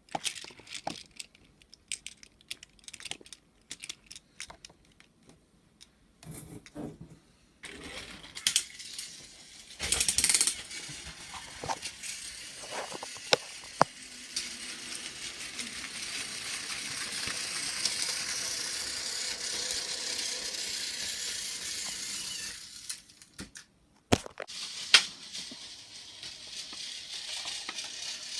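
Battery-powered Tomy toy train running on plastic track: a steady whirring motor with the rattle and clicking of wheels and freight cars, after a run of scattered clicks and taps. It stops briefly near the end, followed by two sharp clicks.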